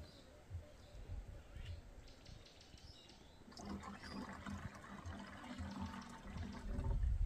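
Water sloshing and pouring into a plastic jerrycan, with soft knocks of the can being handled and a louder low thumping near the end.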